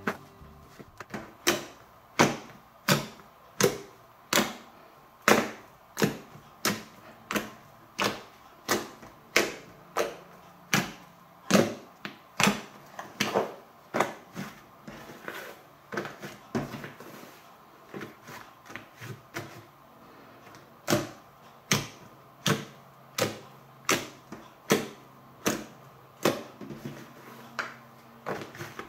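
Fluffy slime made of glue and shaving foam being kneaded and stretched by hand, giving a string of sharp pops about one and a half times a second. The pops grow softer and sparser for a few seconds past the middle, then come back.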